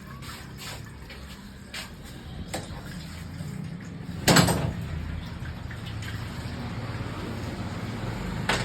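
A few light tool clicks and one sharp clunk about four seconds in, then a steady pouring as the Bajaj Platina's used engine oil drains out of the crankcase.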